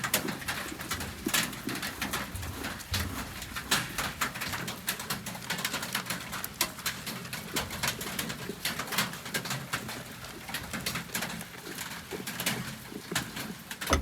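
Birds cooing, amid many irregular clicks and taps.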